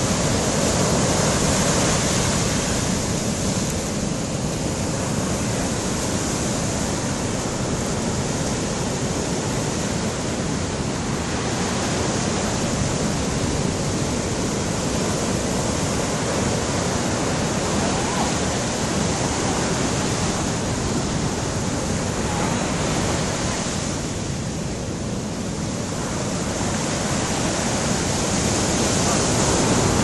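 Rough sea surf breaking over rocks and washing up a sandy beach: a continuous rushing roar of waves that eases briefly about three-quarters of the way through, then builds again near the end.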